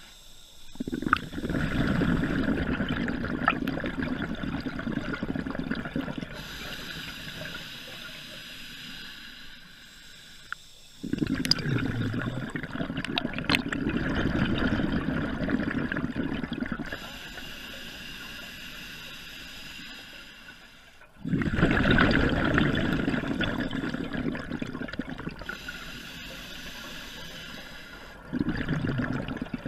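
A scuba diver breathing underwater through a regulator. Exhaled bubbles start abruptly and bubble for several seconds at a time, four times, with a quieter steady hiss in between.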